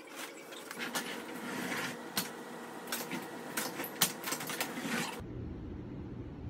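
Handling noises: scattered clicks and knocks with rustling, as parts and packaging are moved about. About five seconds in, these cut off abruptly into a low, steady rumble.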